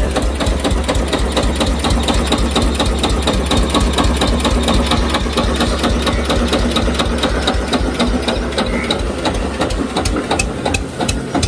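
Diesel tractor engine running steadily with a rapid, even clatter.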